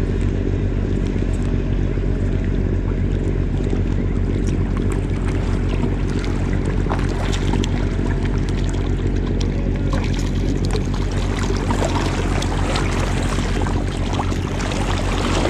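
A steady low motor hum runs throughout, with water splashing and spattering from a hooked barracuda thrashing at the surface. The splashing grows denser in the last few seconds.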